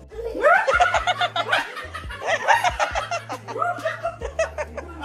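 Lively laughter in quick, high-pitched bursts, over background music.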